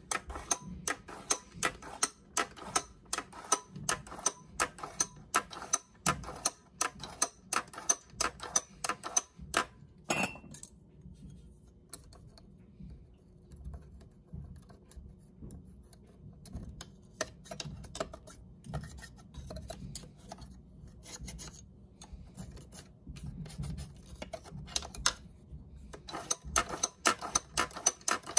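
Rancilio coffee grinder's doser lever being pulled repeatedly, clicking about twice a second as it turns the doser's vanes to sweep out the grounds. In the middle come softer scattered ticks and scraping of a small tool inside the doser chamber, and the rapid clicking resumes near the end.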